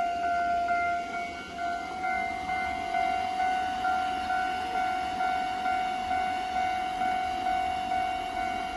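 Japanese level-crossing warning bell ringing over and over, about two strikes a second, with a low steady rumbling noise beneath.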